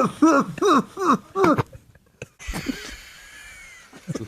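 A man cracking up with laughter: a quick run of about six falling-pitch 'ha' bursts, then after a short break a breathy, high-pitched wheeze laugh with barely any voice.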